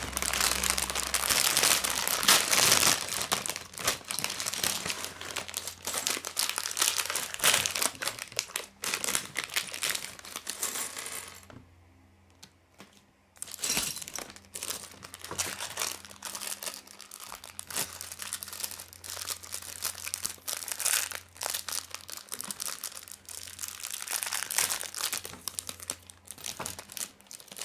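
Thin plastic Lego parts bag crinkling as it is opened and emptied, with small plastic bricks clattering out onto a wooden table. There is a short pause a little before halfway, then more crinkling and clicking as the rest of the pieces are shaken out.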